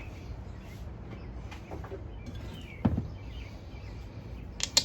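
A single knock about three seconds in and a few sharp clicks near the end, small objects being handled on a work surface, over a steady low hum with faint bird chirps.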